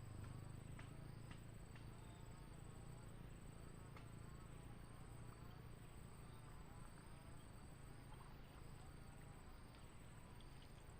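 Faint outdoor insect chorus: a steady high-pitched drone with a second trill pulsing just under once a second, over a low hum, with a few faint ticks.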